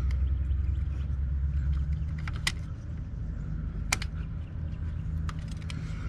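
Utility knife working at the insulation of a car battery cable: a few light ticks and two sharp clicks, about two and a half and four seconds in, over a low steady rumble.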